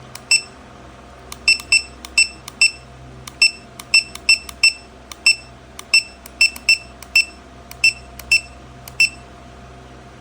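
Allan 1222 coin timer's buzzer giving a short high beep with each press of its setting buttons: about seventeen beeps at irregular spacing, stopping about nine seconds in.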